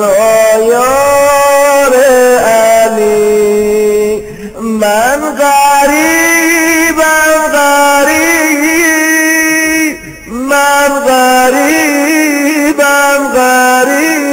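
A male voice chanting a slow, melismatic devotional lament in long held notes with ornamented turns. It breaks off briefly about four seconds in and again about ten seconds in.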